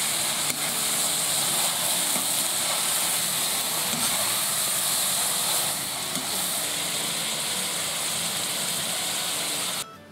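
Meat and onions frying in hot fat in a kazan: a loud, steady sizzle as the meat browns, which cuts off suddenly near the end.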